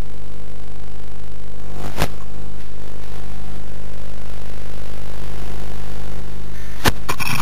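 Steady low electrical hum with two sharp clicks, one about two seconds in and one near the end.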